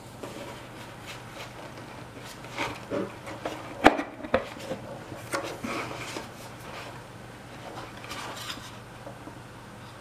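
Scattered metallic clicks, knocks and rubbing as the Volta ErgoEasy vacuum motor's sheet-metal housing is handled and pressed back together, with a sharp knock about four seconds in.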